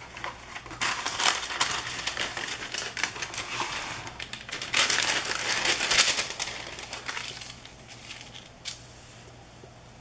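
Sheet of wax paper crinkling and rustling as it is pulled from its box and handled, loudest in two spells through the first seven seconds, then quieter as it is smoothed flat.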